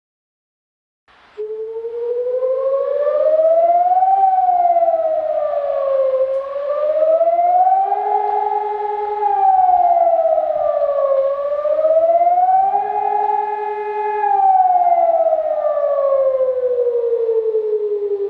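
Civil defense siren wailing as an emergency warning signal, starting about a second in. Its pitch slowly rises and falls, holding briefly at the top of some rises.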